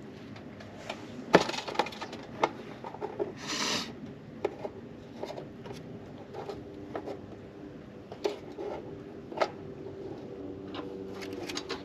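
Hands working gas-line fittings inside a camper's metal access compartment: scattered clicks and light taps, the sharpest about a second and a half in, with a short scraping rustle about three and a half seconds in.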